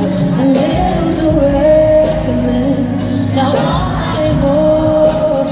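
A female singer singing a pop ballad live into a handheld microphone over band accompaniment, with long held notes, heard through an arena's sound system from the crowd.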